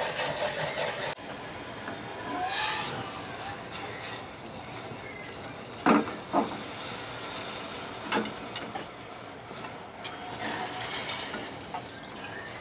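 Restaurant kitchen work sounds: a steady hiss with a few short, sharp clinks, two close together about six seconds in and another about two seconds later.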